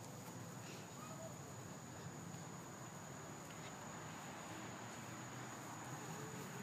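Insects singing in one steady high-pitched drone over quiet outdoor ambience.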